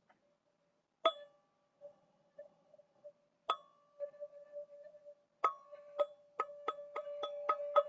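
A single-pitched metal chime struck with a mallet, its tone ringing on between strikes. It is struck twice, slowly, about a second in and again halfway through, then faster and faster from about five seconds in.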